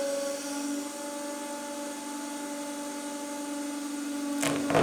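Hydraulic press pump humming steadily while the ram squeezes a roll of 1.5 mm rope. Near the end comes a short cluster of sharp cracks as some of the rope strands snap: the roll gives way in parts rather than in one big bang.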